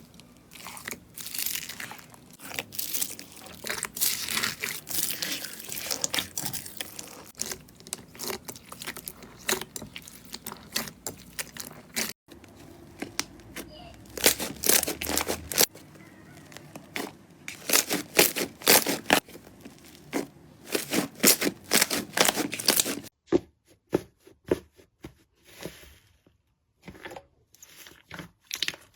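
Slime being squeezed, poked and pressed by hand, making rapid runs of sticky clicks and pops. The sound changes abruptly about twelve seconds in and again about twenty-three seconds in, where it turns sparser with quiet gaps between the clicks.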